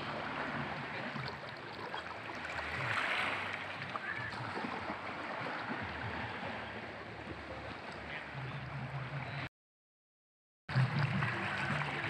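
Small, gentle waves lapping and splashing against boulders at the water's edge, a continuous wash of water. The sound cuts out completely for about a second near the end, then resumes.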